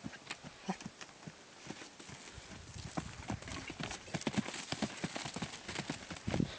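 Hoofbeats of a horse going round in circles on packed dirt: a run of quick strikes that grows louder and denser about two and a half seconds in.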